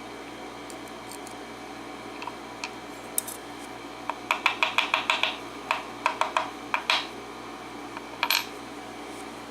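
Small metal clicks and taps from handling the parts of a taken-apart padlock, its plug and pin tumblers: a few scattered clicks, then a quick run of them in the middle and one more near the end, over a steady low hum.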